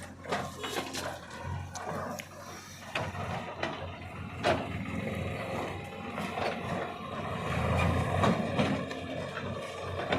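Backhoe loader's diesel engine running with a low steady hum, with scattered knocks and clatters over it.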